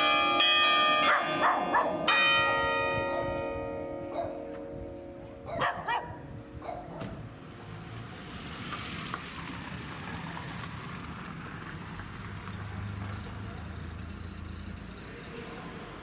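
Ambrosian church bells, a 1928 Angelo Bianchi peal in B-flat, struck in the last notes of a melody. The strikes stop about two seconds in and the bells ring on, dying away over the next few seconds. A few short sharp sounds come between about four and seven seconds in, then only a faint steady background hiss.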